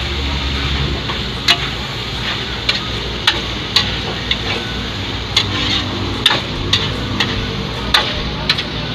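Metal tongs clinking and scraping against a steel wok as food is stir-fried, over a steady sizzle. The sharp clinks come irregularly, about one or two a second.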